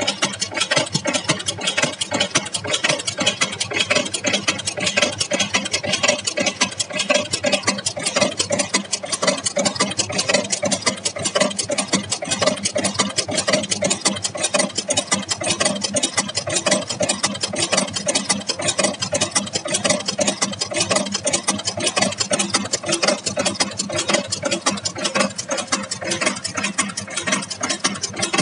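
Automatic side anchor chain making machine running steadily, a fast, continuous metallic clatter as it feeds wire and bends it into chain links.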